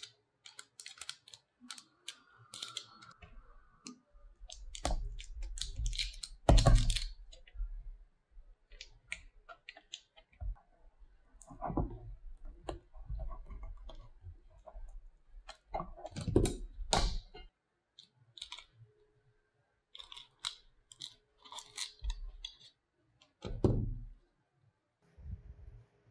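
Irregular clicks, taps and light knocks of hands handling a bowl, a paper cup and a metal spatula on a plastic-wrapped board, with a few louder knocks scattered through.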